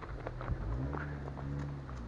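Car engine running nearby, its pitch easing up and down twice, with short crunching steps or clicks on the ground over it.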